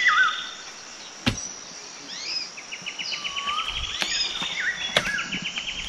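Birds calling with short whistled notes and a fast ticking trill over a steady high insect hum, with three sharp knocks, about a second in and twice near the end, from a metal garden hoe striking into a concrete planter.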